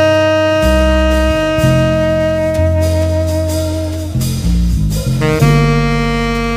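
Jazz: a saxophone holds one long note that fades about four seconds in, then starts a second held note, over a moving bass line.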